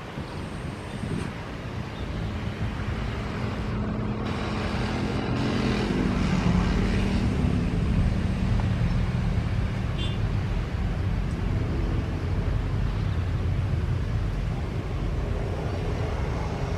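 Jet airliner engines rumbling with a low steady hum, growing louder over the first several seconds and then holding steady.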